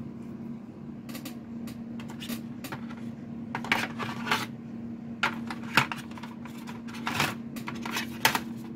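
Irregular clicks and light clatter of a metal-cased USB Ethernet adapter and its cable being handled and lifted out of a plastic packaging tray, the sharper knocks mostly in the second half. A faint steady hum sits underneath.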